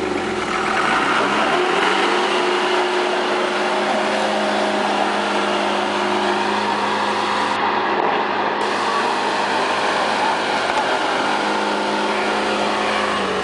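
Minibus engine revving up over the first two seconds and held at high revs as the bus pulls its wheels through deep mud, easing off near the end.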